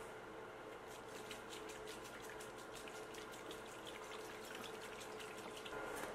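Hydrogen peroxide pouring from a gallon jug into a plastic tub of liquid: a steady, faint trickle and splash with many quick small splatters.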